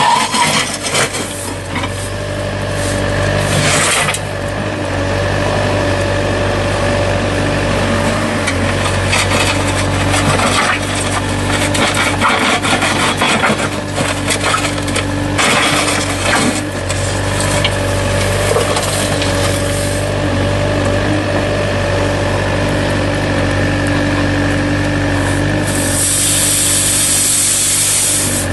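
A machine's engine running steadily under repeated scraping and rubbing noises, with a loud burst of hiss near the end.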